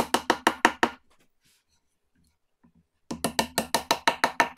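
Hammer tapping thin mahogany splines into glued slots in the mitred corners of a plywood box: quick, even taps, about seven a second. The tapping stops for about two seconds midway, then starts again.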